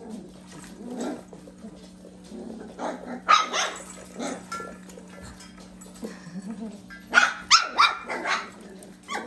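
Young mini goldendoodle and labradoodle puppies barking in short, high-pitched yaps, in a burst about three seconds in and a longer run of several yaps around seven to eight seconds, over a faint steady hum.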